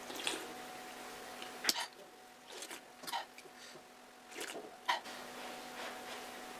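Quiet close-up eating sounds: short sips of ramen soup taken from a metal spoon, with a sharp click of the spoon a little under two seconds in.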